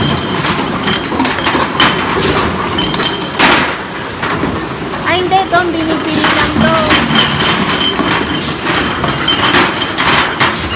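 Green glass beer bottles clinking and cartons knocking on a stainless-steel counter as they are sorted and counted by hand, in irregular sharp clinks and knocks.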